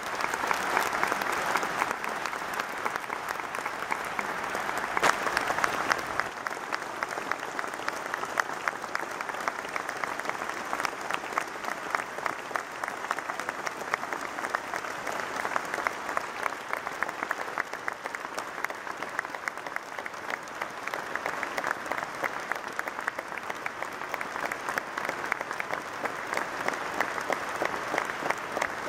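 A large audience applauding, dense clapping throughout, loudest in the first six seconds and then steady.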